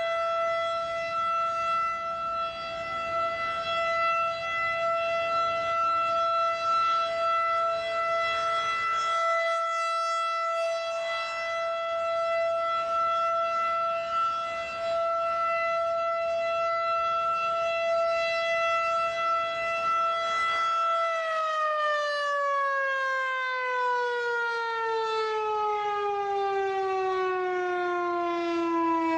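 Federal 2001-DC outdoor warning siren sounding its monthly test: a loud, steady single tone held for about twenty seconds, then winding down, its pitch falling smoothly through the last several seconds.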